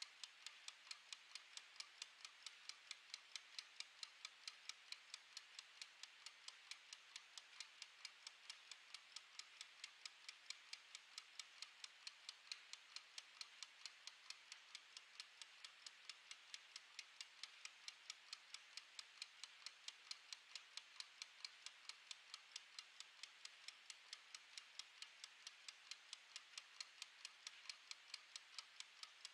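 Mechanical wind-up kitchen timer with a plastic case, its clockwork ticking faintly in a steady, rapid, even rhythm as it counts down.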